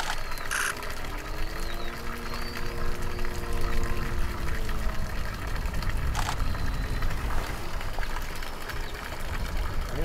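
Steady low outdoor rumble. About a second in, a low droning hum with a clear pitch comes in, rises slightly, holds and fades about five seconds in. A short high-pitched burst sounds near the start.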